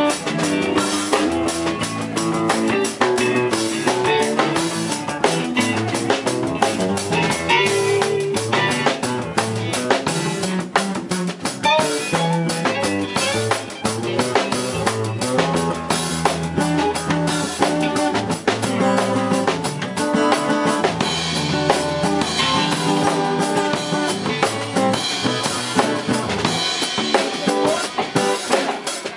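Live band with electric guitars, bass guitar and a drum kit playing a reggae-rock song, the drums keeping a steady beat.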